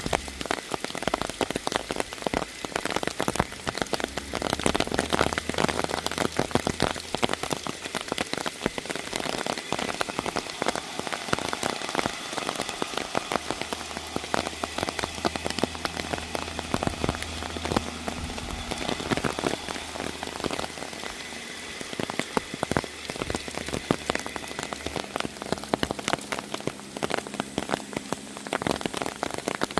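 Steady rain falling, with many individual drops striking close by every second. A low hum comes and goes underneath.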